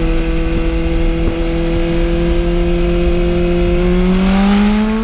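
A motor vehicle engine running loudly at a steady pitch, then rising in pitch near the end as it revs up.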